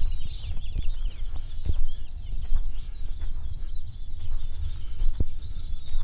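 Many small songbirds chirping and twittering at once in a continuous chorus of quick, high calls. Underneath runs a steady low rumble on the microphone, with a few scattered soft knocks.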